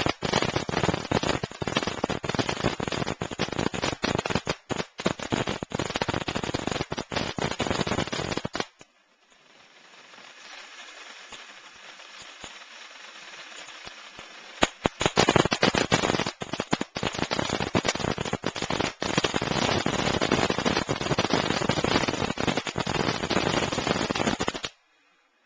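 Night Treasure firework going off in a rapid, dense crackle for about eight seconds, dropping to a quieter hiss for about six seconds, then crackling hard again for about ten seconds before cutting off suddenly near the end.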